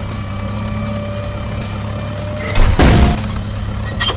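Vehicle engine running with a steady hum. About two and a half seconds in, a loud noisy burst lasts about half a second, and a short sharp click comes near the end.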